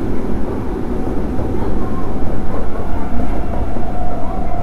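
Interior running noise of an unrenovated Osaka Yotsubashi Line 23 series subway car in motion: a steady, loud rumble of the train running on the rails, with a faint steady whine underneath.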